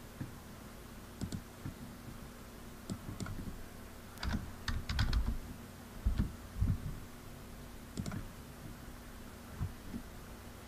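Playing cards being handled and shuffled on a table: scattered light clicks and taps, with a denser run of taps and soft thumps about halfway through.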